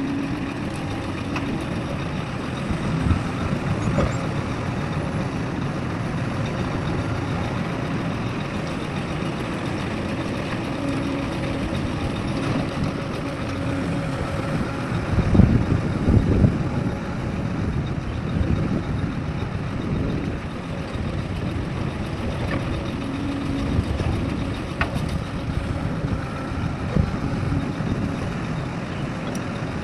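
Heavy diesel earthmoving machinery running: a steady engine rumble that swells in a few louder surges, the biggest about fifteen seconds in.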